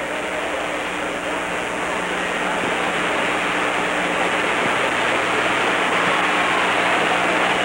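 Boxing arena crowd noise, a steady roar that slowly grows louder, with a faint low hum underneath.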